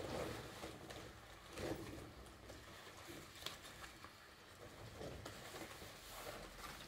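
Faint rubbing and rustling of a latex rubber coat being handled and unfolded, in several short rubs, with a small click about three and a half seconds in.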